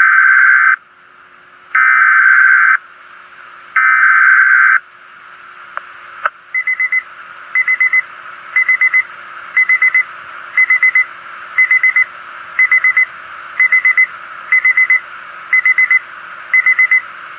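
Emergency alert signalling on a weather radio broadcast. It opens with three one-second bursts of harsh, buzzing SAME digital header tones about a second apart. About six seconds in, electronic alert beeping starts: a quick cluster of high beeps about once a second, with a faint steady hum underneath.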